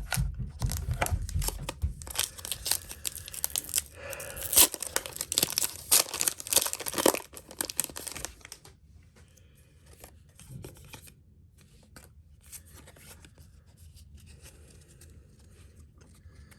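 Foil Pokémon booster pack being torn open, its wrapper crinkling, for about eight seconds. After that come only sparse, quieter rustles and clicks.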